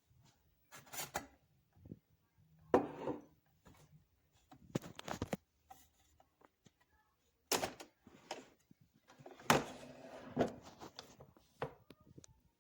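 Irregular short knocks, thunks and rubbing clatter, about ten of them with quiet gaps between: hard objects being handled and set down.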